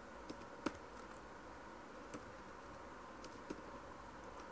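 A few scattered computer keyboard keystrokes, about six sharp clicks spread over several seconds, as numbers are typed into a form field, over a faint steady hum.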